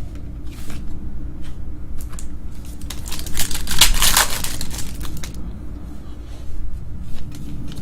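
Trading-card pack wrapper crinkling and cards being handled, loudest from about three to five seconds in, with scattered light clicks and a steady low hum underneath.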